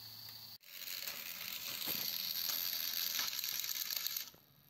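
Battery-powered toy train running on plastic track: its small motor and gearbox whirring and clattering, with little ticks from the wheels. It starts abruptly after a brief drop about half a second in and falls away to a faint hum about four seconds in.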